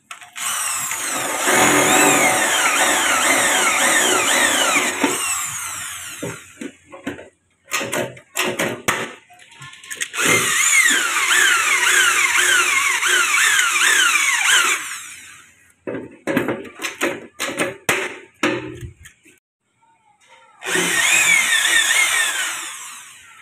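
Corded electric drill boring into an aluminium sliding-door frame corner, in three runs of a few seconds each, with short bursts and knocks between them.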